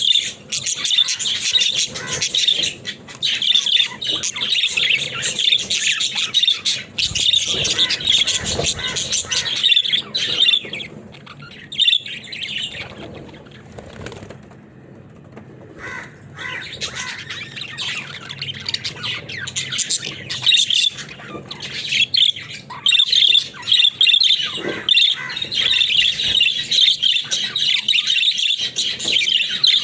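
Budgerigars chattering and chirping continuously, a busy warble of chirps and squawks, pausing briefly about halfway through.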